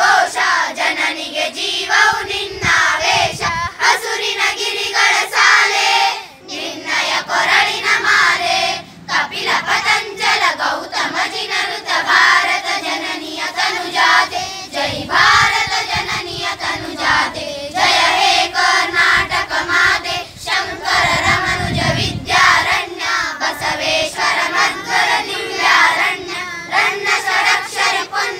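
A children's choir of boys and girls singing together in unison, with brief pauses between phrases about six and nine seconds in.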